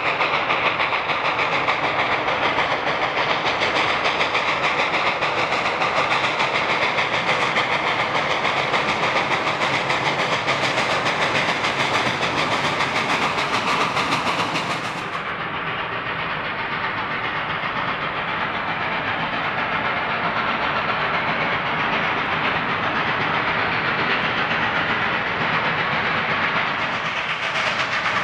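Steam train running: a steady, dense mix of wheels on the rails and steam. About halfway through the sound changes abruptly, turning duller and a little quieter.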